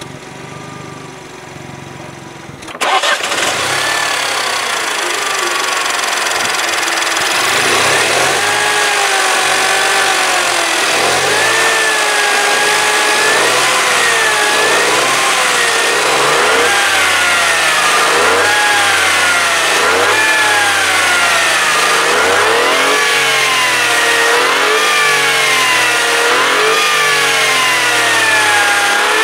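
Mini One's 1.2-litre three-cylinder turbo engine, heard with the bonnet open. It is at first steady and quieter, then suddenly louder about three seconds in. From about seven seconds in it is revved up and let fall again over and over, its pitch rising and falling every couple of seconds.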